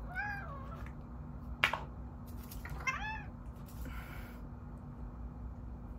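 A pet cat meowing twice, two short calls that rise and fall in pitch, the first right away and the second about three seconds later. A single sharp click falls between them.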